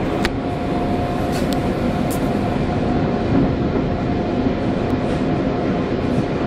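Passenger train in motion, heard from inside a coach: the steady rumble and rattle of the wheels on the rails, with a thin, steady whine running through it.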